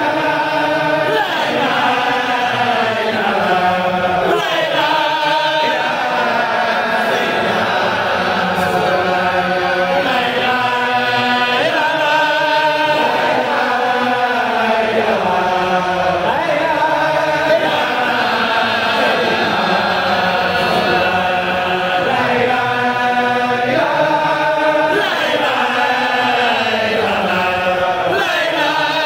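Men's voices chanting Islamic devotional verses, one continuous melodic chant whose long phrases rise and fall in pitch.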